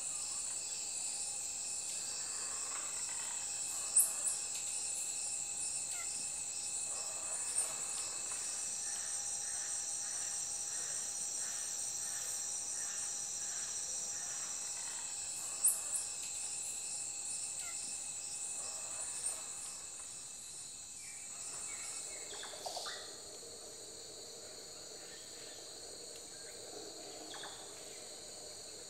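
Tropical forest ambience: a steady, high-pitched chorus of insects with pulsing trills, broken by a few short, sharp rising chirps. About two-thirds of the way through, the chorus thins and grows quieter.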